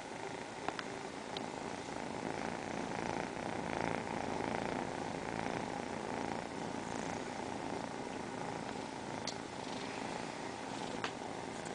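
Tabby kittens purring together close to the microphone, a steady unbroken purr, with a few brief clicks.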